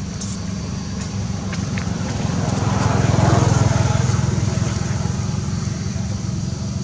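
A motor vehicle's engine running with a steady low rumble, growing louder about three seconds in and fading again as it passes.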